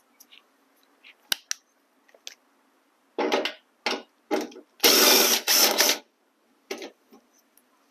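A few light clicks as a socket on an extension is fitted, then a cordless power driver run in about six short bursts, the longest about five seconds in, backing out the upper fender mounting bolt on a Honda Civic.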